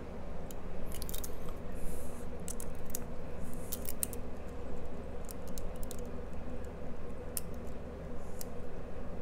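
A lock pick working the pins of a Codkey Locksys L52 cylinder: faint, irregular metallic ticks and scrapes of the pick against the pins, over a steady low hum.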